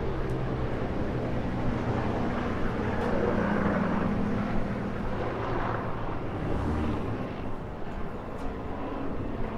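Street traffic: a motor vehicle's engine running with a low hum, swelling as it passes close by in the middle and fading away afterwards.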